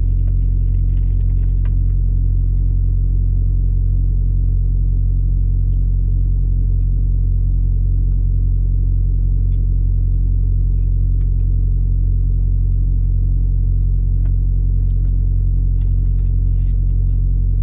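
A steady low rumble and hum at an even level, with a few faint small clicks and taps from camera gear being handled on a gimbal in the second half.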